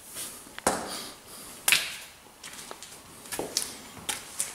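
A few scattered light knocks and scuffs, the loudest about a second and a half in.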